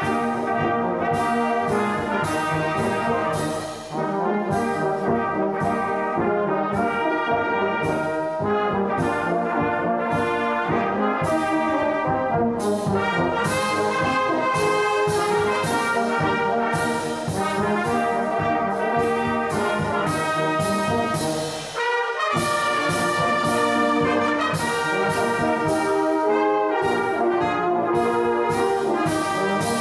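Brass band of trumpets, trombones, baritone horns and a sousaphone playing a Christian hymn in full harmony. The sound thins briefly between phrases about four seconds in and again about 22 seconds in.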